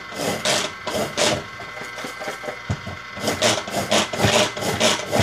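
Hand-operated food chopper crushing pink cookies into crumbs: repeated short rasping, grinding strokes, about three near the start, then a quicker run of about six from about three seconds in.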